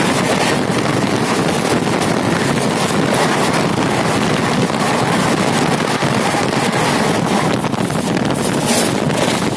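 Steady loud rushing noise of two express trains passing each other at speed on adjacent tracks, heard from inside one of them, with wind buffeting the microphone.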